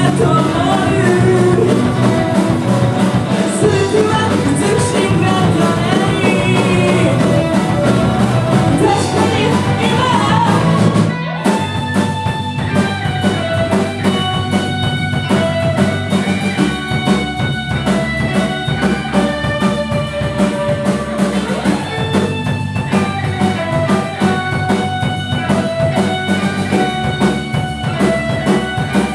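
Live rock band playing with a singer, electric guitars, bass, keyboard and drums. The loud full-band passage breaks off sharply about eleven seconds in, and the music goes on quieter, with clearer held notes.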